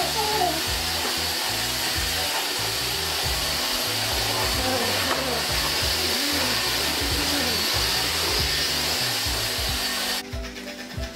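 Stick vacuum cleaner running steadily with a high-pitched whir, cutting off suddenly about ten seconds in.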